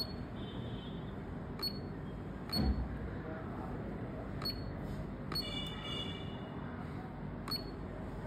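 Pulse spot welder welding the cable onto a phone battery's metal tabs: a sharp snap at each weld pulse, six in all at uneven intervals. The one about two and a half seconds in is the loudest and carries a dull thump. A faint high whine sounds briefly near the start and again past the middle.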